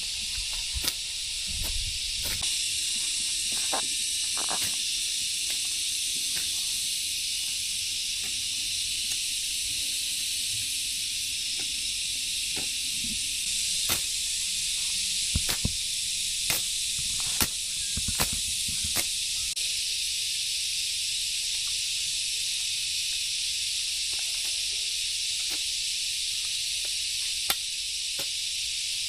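A steady high-pitched hiss, with scattered sharp clicks and knocks, a handful of them close together about halfway through.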